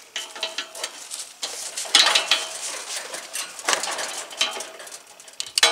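Pliers clicking and scraping on the metal hub and nut of a heat pump's condenser fan blade, working the nut loose to free the blade from the motor shaft. Irregular short metallic clinks, some with a brief ring.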